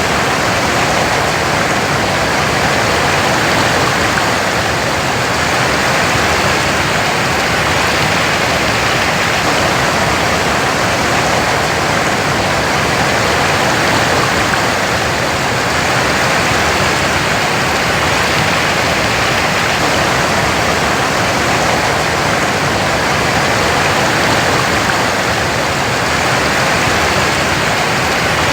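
Waterfall: a steady, dense rush of falling water with slow, gentle swells in level.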